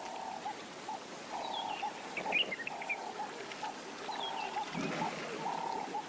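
Wildlife ambience: an animal call repeats in an even rhythm about every second and a half, with short high bird chirps over it.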